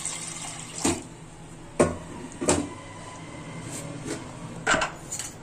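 Metal utensils clanking against each other and the counter: four sharp knocks spread over a few seconds, as a steel vessel and an aluminium pressure cooker are handled after water has been poured over soaked chana dal. A short pour of water may be heard at the very start.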